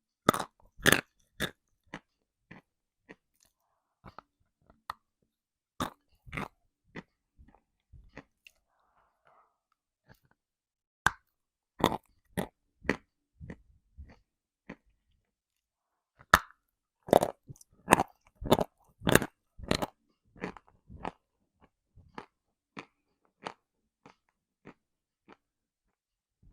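Someone biting and chewing hard, dry chunks of edible chalk-type mineral: sharp crunches in irregular clusters with short pauses, the loudest run of crunches about two-thirds of the way through.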